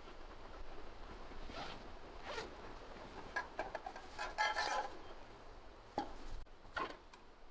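About six short rasping strokes, like something being pulled, rubbed or scraped. The longest and loudest is a buzzy rattle about four to five seconds in.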